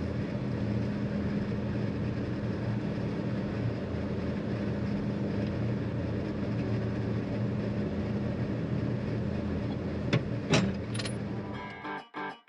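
Steady drone of a John Deere 9500 combine's diesel engine running, with a few sharp clicks about ten seconds in. Music starts in the last second.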